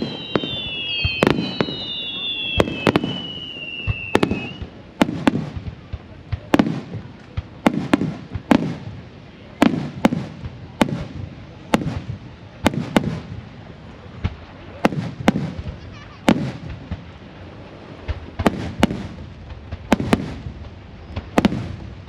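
Aerial firework shells bursting in quick succession, each a sharp bang followed by a low rumbling echo. In the first few seconds, whistling fireworks add high whistles that slide slowly down in pitch.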